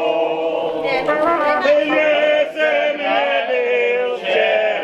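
A group of people singing a folk song together, several voices on long held notes.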